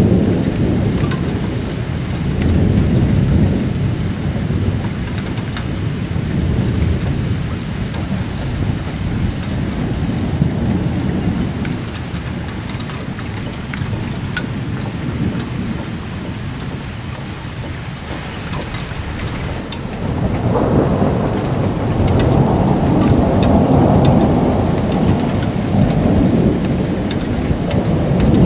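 Thunder rolling and rumbling almost without a break, swelling briefly early on and building into a long, louder roll about two-thirds of the way through that lasts to the end, with rain falling underneath.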